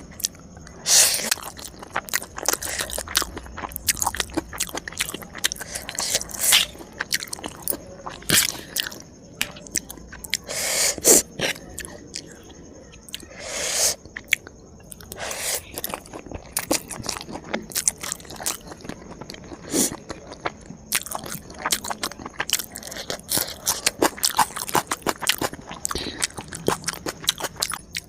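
A person chewing and crunching food close to the microphone, with many sharp, irregular crunches and a few longer wet mouth noises.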